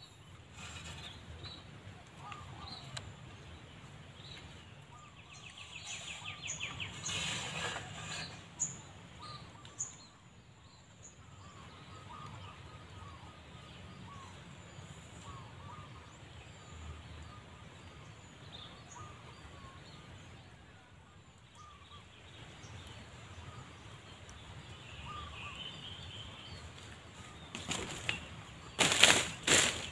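Faint bird calls, short notes repeating, with a quick trill about seven seconds in. Near the end comes a burst of loud rustling and flapping.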